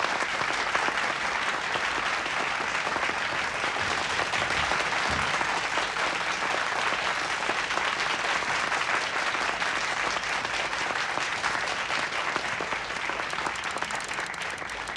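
Audience applauding steadily, a dense patter of many hands clapping that thins out near the end.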